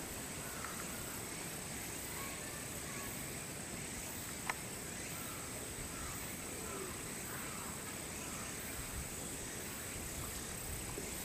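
Quiet outdoor ambience: a steady high-pitched drone under faint, short falling chirps, with a single sharp click about four and a half seconds in.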